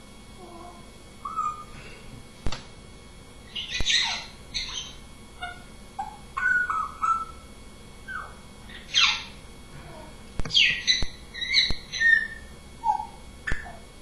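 African grey parrot giving a string of short chirps, squawks and whistles, some sweeping down in pitch, with a few sharp clicks between them.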